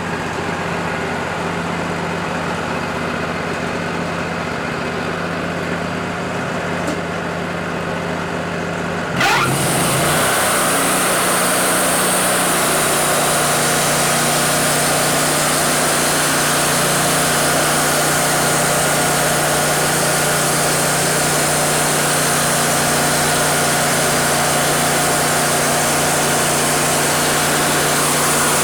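Wood-Mizer LT40 band sawmill: the engine runs steadily, then about nine seconds in the band blade is engaged with a quick rising whine. The mill runs on much louder and steady, the blade sawing through a cedar log.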